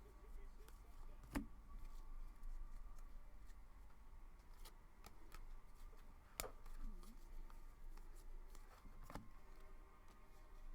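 Trading cards and pack wrappers being handled, faint rustling and light ticks, with three sharper clicks: one about a second and a half in, one past the middle and one near the end.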